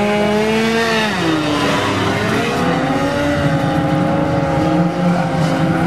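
Motorcycle engine revving: the pitch holds high, drops about a second in, then climbs again and holds steady.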